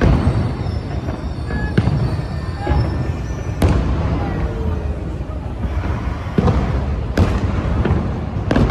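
Fireworks bursting: several sharp bangs a second or two apart over a continuous low rumble of shells exploding.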